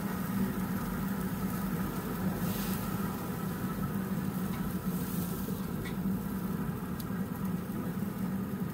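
Pit Boss pellet grill running at searing heat: a steady hum from its fan under the sizzle of steaks on the hot grate. A few light clicks of steel tongs come as the steaks are turned.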